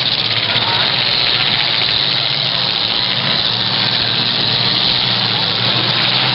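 Several demolition derby cars' engines running at once, a loud, steady drone with no crashes standing out.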